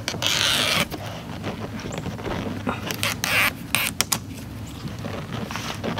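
Red release liner peeled off the adhesive tape of an AVS in-channel vent visor: a short noisy peel near the start and another about three seconds in. Between them come small clicks and scrapes as the plastic visor is pushed up into the rubber window channel.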